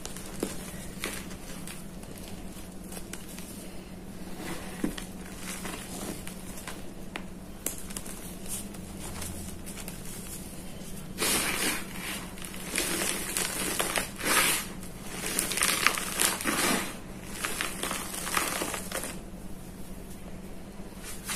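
Hands crushing and squeezing crumbly reformed gym chalk (a school-chalk and cornstarch powder mix), making dry crunching and crackling. Scattered, softer crackles come first; about halfway through it turns into louder, denser bursts of crunching that ease off near the end.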